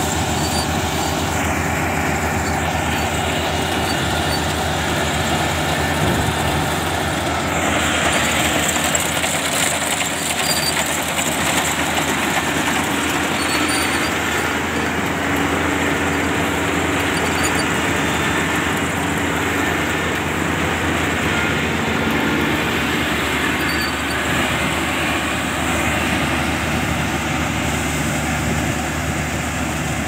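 Kubota DC-35 combine harvester running steadily under load as it harvests rice: its diesel engine and threshing machinery make a loud, even drone, with a brighter hiss for a few seconds about eight seconds in.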